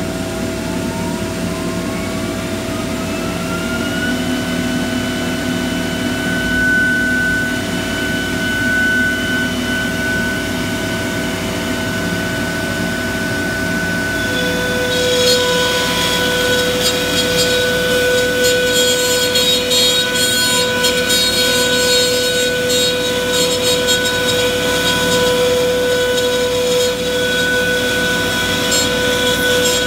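CNC router spindle spinning up, its whine rising for about four seconds and then holding steady over the continuous hum of the vacuum hold-down pump and dust collector. About halfway through, the router bit starts cutting plywood, adding a harsh, hissy cutting noise that continues to the end.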